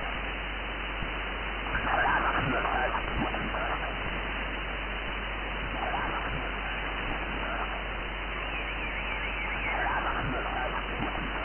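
Shortwave receiver audio on 15-meter single sideband: a steady band hiss through the narrow SSB filter, with weak, garbled sideband voices fading in about two seconds in, again around six seconds, and near the end.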